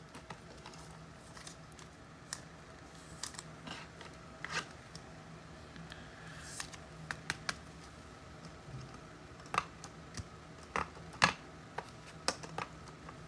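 Trading cards and pack wrappers being handled: scattered light clicks, taps and scrapes at an irregular pace, over a faint steady low hum.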